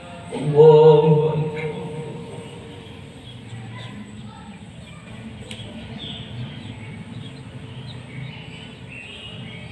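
A male imam's voice, amplified through the mosque's microphone, chants one brief takbir ("Allahu akbar") about half a second in, calling the worshippers into the bow. Then only faint low voices and room noise remain while the congregation holds the bow.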